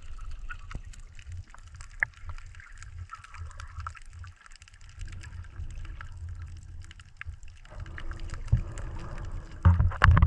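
Muffled water sound recorded underwater by a GoPro in its housing: a steady low rumble of moving water with many faint scattered clicks and crackles, and a few louder knocks near the end.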